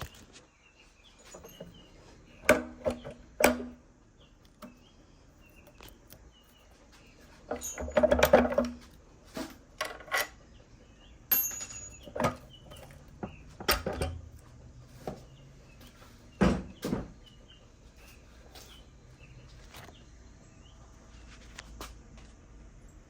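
Intermittent metallic clanks and knocks of hand tools and engine parts being handled, a dozen or so sharp hits with short ringing; the loudest cluster comes about eight seconds in.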